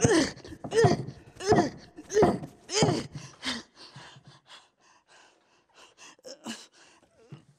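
A woman's voice making six short wordless cries in a steady rhythm, each falling in pitch, then trailing off into quieter breathy gasps about halfway through.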